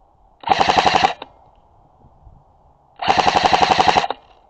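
Airsoft gun firing two short full-auto bursts, each under a second of rapid, evenly spaced shots, about two and a half seconds apart.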